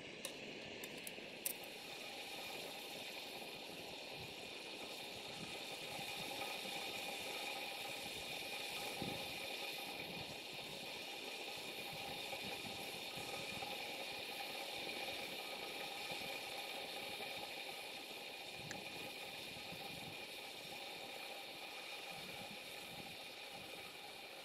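Backpacking canister gas stove burning steadily under its pot, a continuous hiss as it heats water. Two sharp clicks about a second apart near the start.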